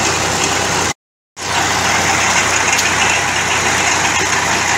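Engine of a winch-type piling rig running steadily. The sound cuts out completely for a moment about a second in, then carries on unchanged.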